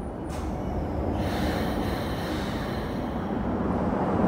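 Hokuso Railway 7500 series electric train standing at a station platform: a steady low rumble, with a hissing rush that comes in about a second in.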